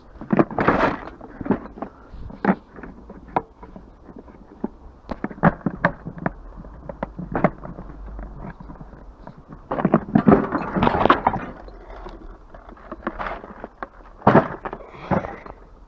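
Scrap metal clanking and clattering as pieces are handled and dropped, in several bursts of knocks with quieter gaps between.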